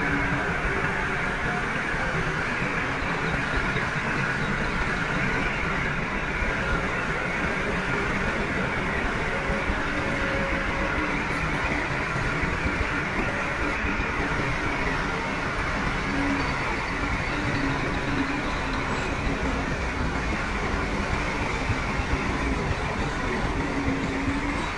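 Heavy diesel earthmoving machinery running steadily, a continuous engine drone with a faint whine that fades in and out.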